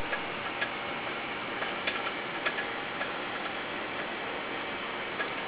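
Steady hiss with scattered, irregularly spaced clicks and crackles.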